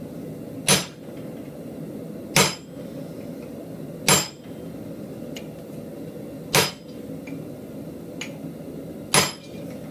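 Hand hammer striking a pointed chisel into hot steel held in a post vise: five sharp, ringing metal-on-metal blows a couple of seconds apart, harder blows setting the nostrils of a hot-carved animal head.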